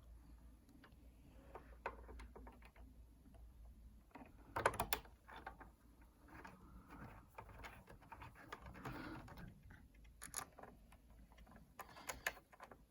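Faint, scattered clicks and taps of small screws, a screwdriver and iMac internal parts being handled and fitted. A louder cluster of clicks comes about four and a half seconds in.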